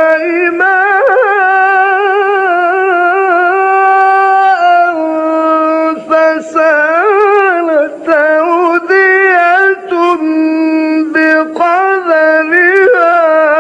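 A male Quran reciter chanting in the slow melodic tajweed style. He holds a long ornamented note for the first several seconds, then sings shorter wavering phrases with brief breaks for breath.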